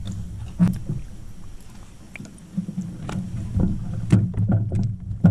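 Irregular knocks and bumps on a fishing boat as a just-landed catfish is handled, over a low steady hum.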